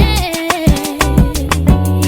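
Background music: a song with a sung melody over bass and a steady, driving percussion beat.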